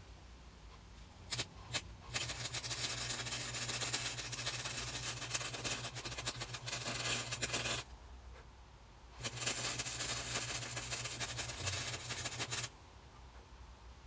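Electric arc welder laying welds on steel brackets: two short arc strikes a little over a second in, then a steady crackling arc with a low hum for about six seconds, a pause, and a second crackling weld of about three and a half seconds.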